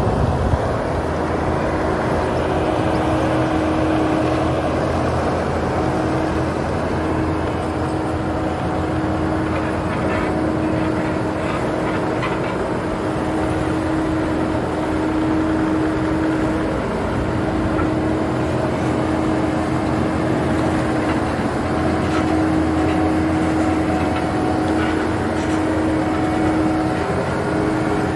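Kubota SVL97-2 compact track loader's diesel engine running steadily under load as the machine drives and moves a shipping container. Over it sits a steady whine that breaks off briefly every few seconds.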